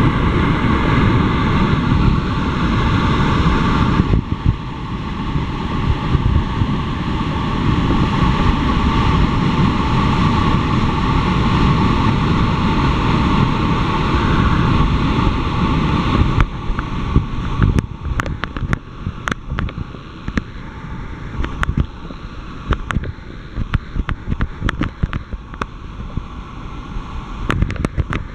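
Tall waterfall rushing: a loud, steady roar of falling water. About two-thirds of the way through it drops somewhat in level and is dotted with many short crackles.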